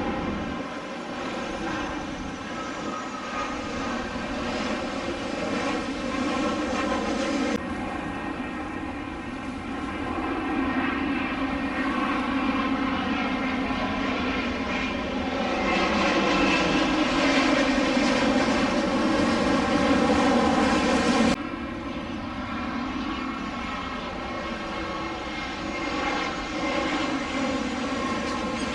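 Jet airliners on final approach, their turbofan engines running with a steady drone and a stack of whining tones. An Embraer E190-E2 is heard first, then an Airbus A350-900 that grows louder as it comes closest, then an Airbus A319. Each change of aircraft cuts in abruptly.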